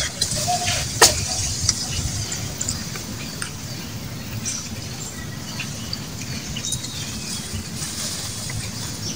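Outdoor background sound: a steady low rumble with scattered faint high chirps, and one sharp click about a second in.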